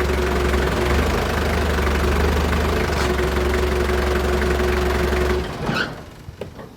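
A vehicle engine idling steadily, which cuts off abruptly about five and a half seconds in, followed by a few light knocks.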